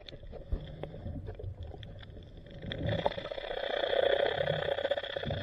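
Muffled underwater sound: scattered knocks and low water rumble, then about halfway in a steady mechanical drone comes in and holds, a boat engine heard through the water.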